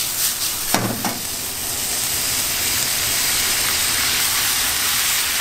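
Seafood and vegetables sizzling in oil in a wok as they are stir-fried over a high restaurant burner, a steady frying hiss.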